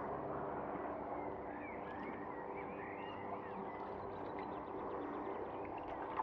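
Steady hum of a pond pump running while the pond is pumped down. Birds chirp over it from about a second and a half in.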